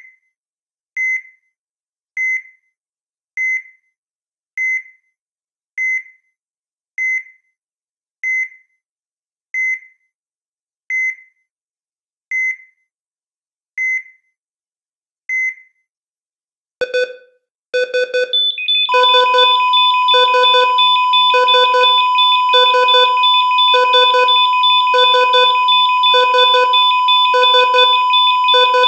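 Synthesized electronic tones: a single short, high, beep-like note repeats evenly about once every 1.2 seconds. About two-thirds of the way through, a fuller layer comes in, with steady held tones under the same pulse, sounding like an alarm.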